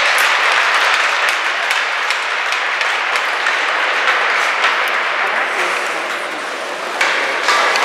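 Spectators clapping steadily, a dense spatter of many hands that swells again near the end.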